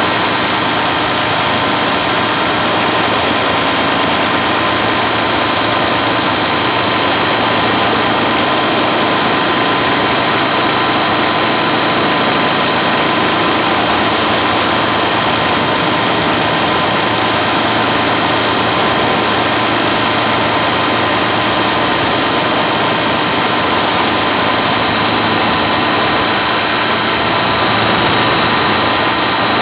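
Helicopter on pontoons running steadily, a constant high whine over an even rushing noise, its pitch and loudness lifting slightly near the end.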